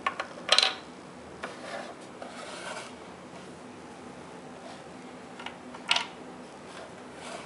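Hard plastic rubbing and clacking as the layered arms of a Kyjen Star Spinner dog puzzle toy are swivelled by hand and the toy shifts on a tile floor, with sharp clacks about half a second in and again about six seconds in.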